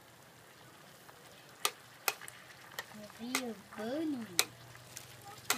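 Beef, onion and egg frying in a pan, a faint steady sizzle, with chopsticks stirring and clicking sharply against the pan several times from about a second and a half in. Two short rising-and-falling tones sound near the middle.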